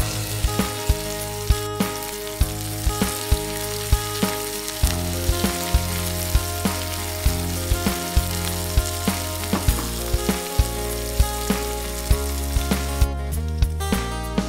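Sliced onions and tomatoes sizzling in oil in a frying pan, under background music with a steady beat and sustained chords. The sizzling stops shortly before the end.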